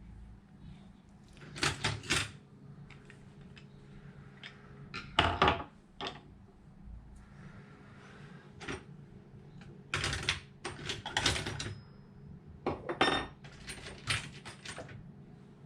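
Small metal tools and hard parts being handled and set down on a work surface: irregular clinks and clatters, several in quick clusters, over a steady low hum.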